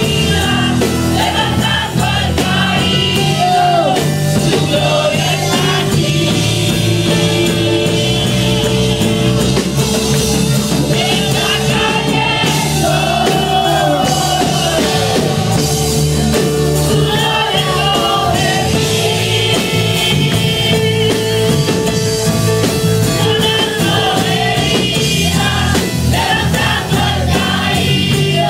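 Loud worship music with voices singing, playing without a break.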